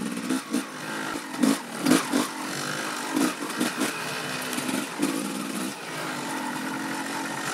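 Dirt bike engine running at low revs on a descent, its pitch rising and falling with the throttle. Several sharp thumps come between about one and three seconds in.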